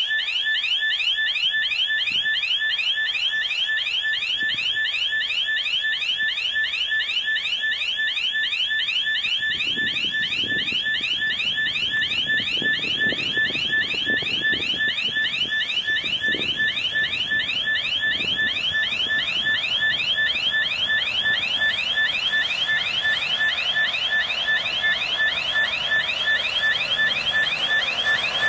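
An electronic railway warning signal sounds continuously as rapid, evenly repeated rising chirps. From about ten seconds in, the low rumble of an approaching TEM2U diesel shunting locomotive joins it and grows nearer.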